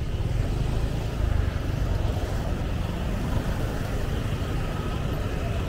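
Street traffic: vehicle engines and tyres making a steady low rumble, with no single vehicle standing out.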